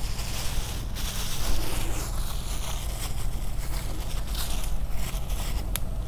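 Crunching and scraping of a metal spoon scooping fine salt from its container, with a few sharp clicks, over a steady low rumble.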